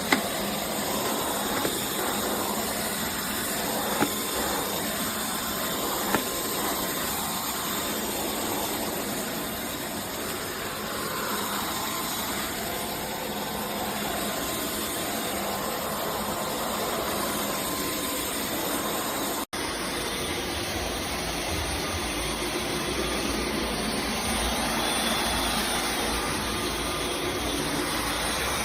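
Dyson V12 Detect Slim cordless stick vacuum running with a steady whooshing hiss. About two-thirds of the way through, the sound cuts off and picks up again with a deeper rumble.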